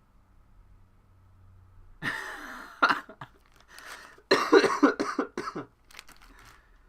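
A man coughing in two bouts: a short one about two seconds in, then a louder, choppier run of coughs a couple of seconds later.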